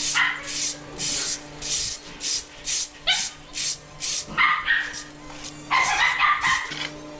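Dog barking rapidly, about two barks a second for several seconds, then a few higher-pitched yelps.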